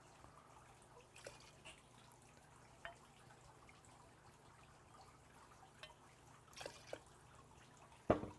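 Tequila being poured, faint trickling and dripping of liquid with a few light clicks, and a sharper knock near the end.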